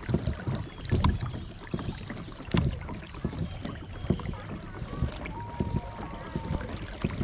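Pelican Catch 130 Hydryve pedal-drive kayak underway: irregular low knocks and clunks from the pedal drive and hull, with water sloshing and wind rumble on the mounted camera's microphone. Two louder knocks come about one and two and a half seconds in.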